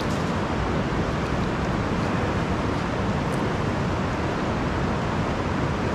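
Steady rushing of a fast river running over rocks and rapids.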